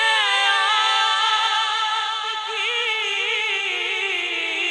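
A man singing a naat, an Urdu devotional poem, unaccompanied. He draws out one long held phrase with quick wavering ornaments, and the line sinks slowly in pitch after the middle.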